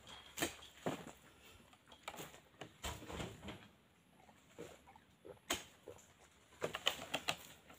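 Oil palm fruit bunches being worked with a long spiked pole and heaved into a truck's cargo bed: scattered knocks and rustling with loose fruit pattering, a sharp knock about five and a half seconds in and a quick run of knocks near the end.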